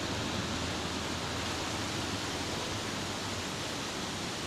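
A steady, even rushing hiss with no clear events in it.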